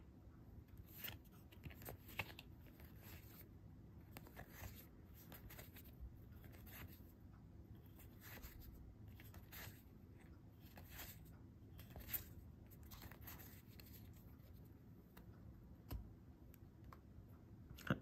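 Faint, irregular flicks and slides of trading cards being pushed off a deck and passed from one hand to the other, about one soft snap a second.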